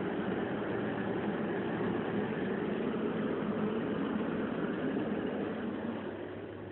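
Steady machine noise, a low hum under a hiss, dropping a little near the end.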